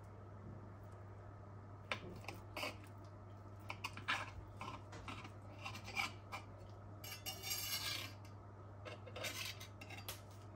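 Knife and fork cutting through a baked zucchini round topped with a meat patty and cheese on a slate serving board: faint clicks and scrapes of the metal cutlery against the stone. There is a longer scraping stretch about two-thirds of the way through, over a steady low hum.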